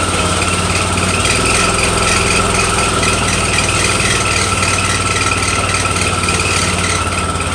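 Engine-driven dredge pump running steadily at constant speed, with a steady high whine over the engine note.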